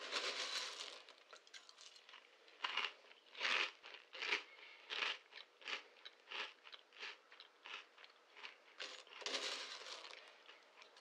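Crunchy chewing, as of dry cereal, with a crunch about every two-thirds of a second, between longer crinkly rustling stretches at the start and near the end.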